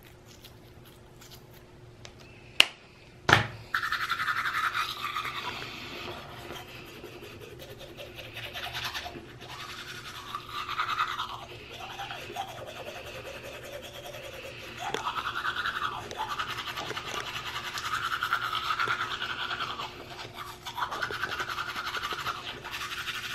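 Two sharp clicks, then someone brushing their teeth: toothbrush bristles scrubbing in uneven back-and-forth strokes.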